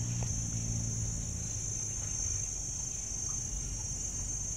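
Insects chirring steadily at a high pitch, over a low steady hum.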